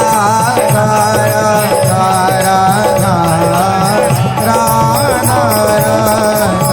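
Devotional music: a voice singing a flowing, ornamented melody over instrumental backing.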